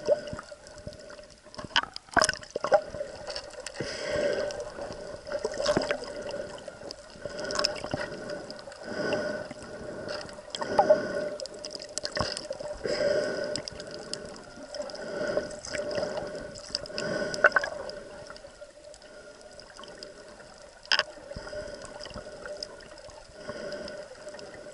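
Loud breathing through a snorkel tube, picked up by a camera held underwater. The breaths come in a rhythm about every two seconds, with gurgling water and a few sharp clicks, and ease off for the last several seconds.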